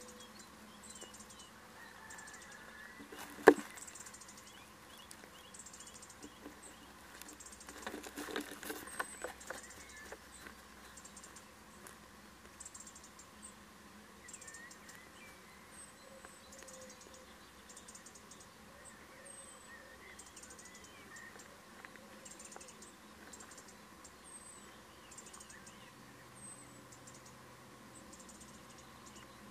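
Little owl shifting about in a wooden nest box: faint scratching and rustling against the boards, a sharp knock about three and a half seconds in, and a burst of scratching around eight seconds. Faint high chirps repeat about once a second behind it.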